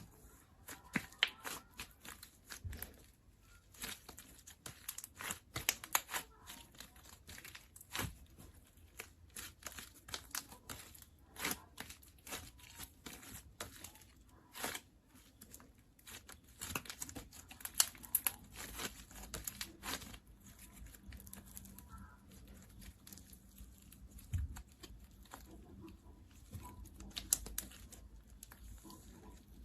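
Blue semi-clear slime being squished, stretched and pressed by hand, giving many irregular sharp sticky clicks and pops.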